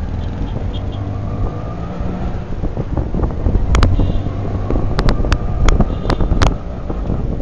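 Street traffic: a steady, loud engine rumble close to the microphone. Several sharp clicks or knocks come in the middle of the stretch.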